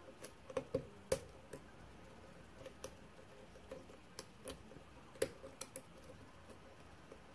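Small, irregular metal clicks and ticks of a hook pick working the pin stacks of a brass mortise lock cylinder held under a tension wrench, with the sharpest clicks about a second in and again a little past five seconds. The picker takes it that he has overset a pin while trying to get under it.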